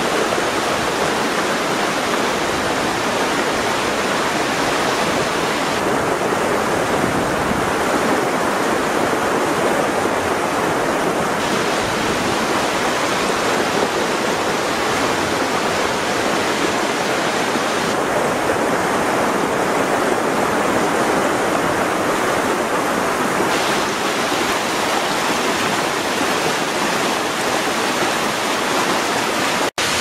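Hagoromo Falls, a tall tiered waterfall, pouring: a steady, dense rush of falling water.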